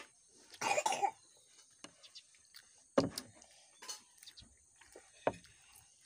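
A short cough about half a second in, then a few sharp taps spread over the following seconds, the first of them the loudest.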